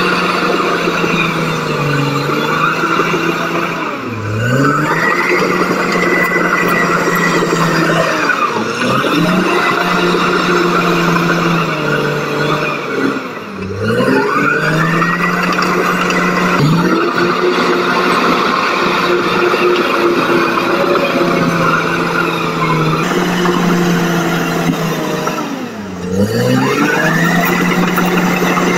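Caterpillar crawler bulldozer's diesel engine running under load, its revs sagging and climbing back about four times, each time with a high whine that rises as the revs recover.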